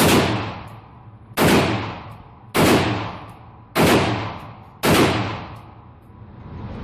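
Gunshots fired one at a time: five shots a little over a second apart, each trailing off in a ringing echo.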